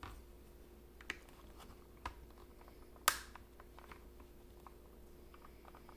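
A few faint, sharp clicks and taps of a screwdriver working against the plastic safety lid of a KitchenAid food processor as it is pried at the lid's clips, about one a second, the loudest about three seconds in.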